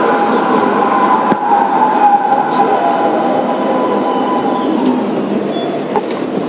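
Kawasaki R-143 subway car's Bombardier MITRAC traction motors whining as the train slows, over a steady wheel and track rumble. The whine falls in pitch and dies away about five seconds in.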